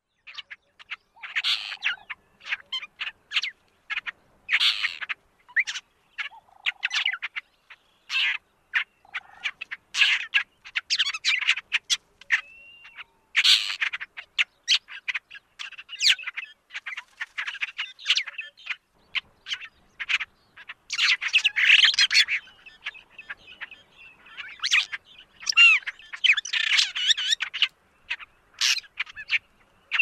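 Magpie starling (Speculipastor bicolor) calling: a fast, varied string of short chattering notes and squeaks with occasional slurred whistles, broken by brief pauses.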